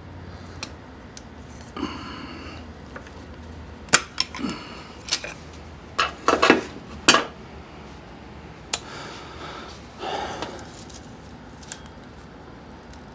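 Scattered clicks, knocks and rattles of gloved hands and tools working at the plastic wiring connector on a Jeep TJ's air-conditioning compressor, a connector that will not unlock. The sharpest knocks bunch together between about four and seven seconds in, with brief scraping and rustling before and after.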